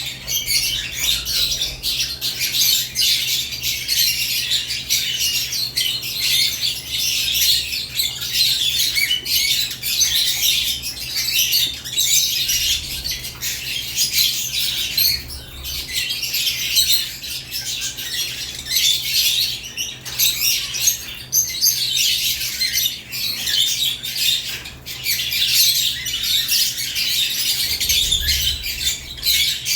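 A flock of caged lovebirds chirping and calling without a break, many high calls overlapping into a dense chatter.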